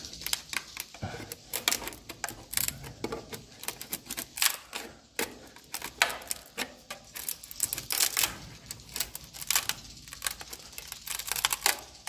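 Metal scraper prying and scraping an edible swiftlet nest off a wooden nesting plank: a run of irregular, rapid clicks and scratches.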